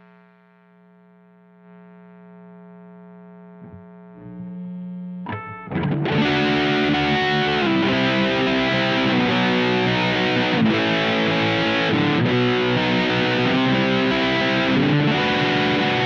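Electric guitar through an Electro-Harmonix Nano Big Muff Pi fuzz pedal. A faint held note rings for the first few seconds, then a loud, heavily fuzzed riff starts about five and a half seconds in.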